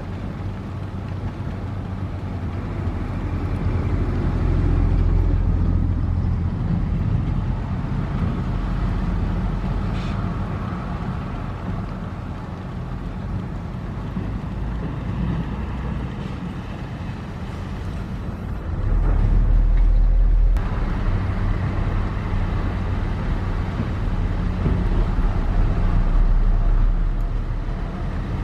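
Diesel engine of heavy earthmoving machinery running under varying load. It grows louder and eases off as it works, with its loudest, deepest surge about nineteen to twenty seconds in.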